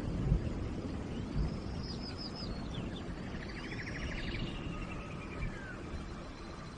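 Steady rain with birds calling over it: short arching whistled calls about a second and a half in and again near three seconds, and a rapid trill in the middle.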